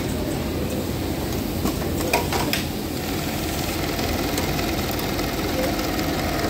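Industrial sewing machinery running steadily, with a few sharp clicks about two seconds in.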